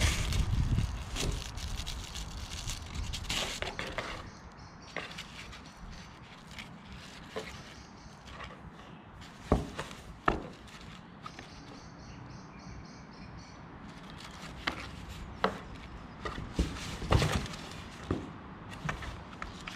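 A cat rolling and pawing inside a cardboard box: scratchy rustling of claws on the cardboard and a scattering of sharp taps and knocks against the box, the loudest two about ten seconds in and several more near the end.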